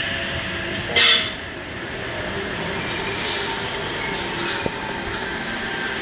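Electric suburban train running at a station platform: steady rail noise, with a short loud hiss about a second in.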